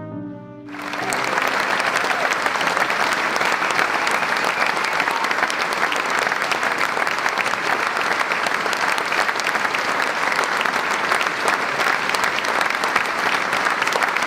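A last strain of music cuts off under a second in, and a theatre audience breaks into loud, sustained applause, many hands clapping steadily.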